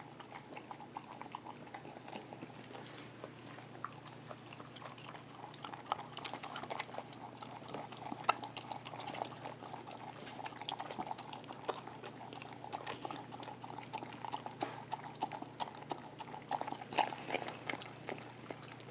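Dog licking leftover food out of a glass measuring cup: quick wet licking with many small clicks against the glass.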